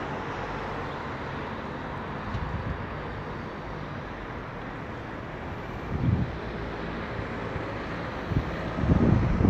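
City street ambience: a steady hum of traffic, with wind buffeting the phone's microphone in low rumbles about six seconds in and again near the end.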